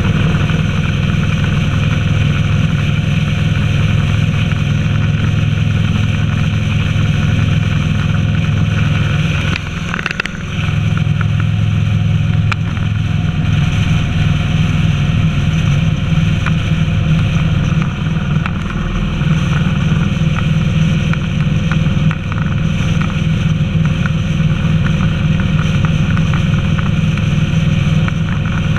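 Honda VTX 1300's V-twin engine running steadily as the motorcycle cruises along the road, heard from a camera mounted on the bike. The engine sound dips briefly about ten seconds in.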